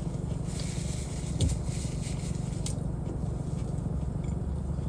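Steady low rumble of a car left idling, which the owner thinks comes from the air conditioning, with a few faint clicks and one short low thump about a second and a half in.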